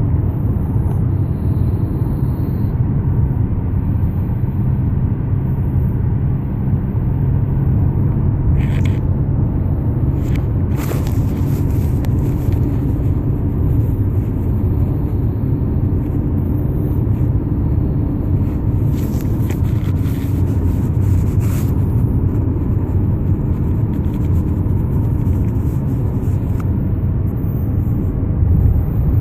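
Steady, loud low rumble, with a few faint brief clicks and no snoring rhythm to be made out.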